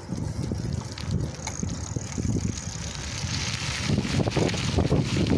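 Wind buffeting the microphone of a camera carried on a moving bicycle, a gusty low rumble, with a rushing hiss of riding that builds up about a second and a half in.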